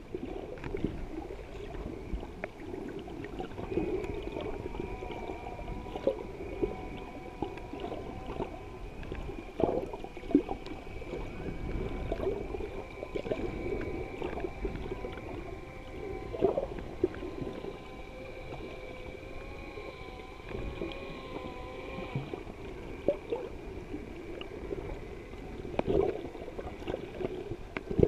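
Underwater sound picked up through a camera's waterproof housing: a constant low wash of moving water, broken by a few louder knocks and splashes. From about four seconds in until over twenty seconds in, a steady, slightly wavering hum of several tones sits above the water noise.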